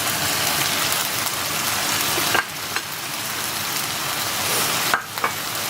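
Chicken, onions and spring onion stalks sizzling steadily in hot oil in a frying pan, with a few light clicks partway through and near the end.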